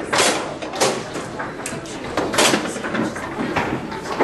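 Foosball game in play: a string of sharp clacks from the ball and the rod-mounted plastic men striking each other and the table, with rods sliding and rattling in between.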